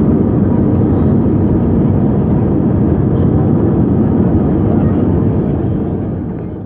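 Steady, loud cabin rumble of an Airbus A320 airliner in flight, engine and airflow noise heard from a passenger seat. It fades out near the end.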